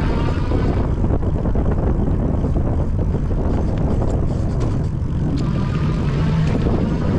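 Steady wind rumble on the microphone while riding an electric bike at speed, with the bike's rolling noise underneath.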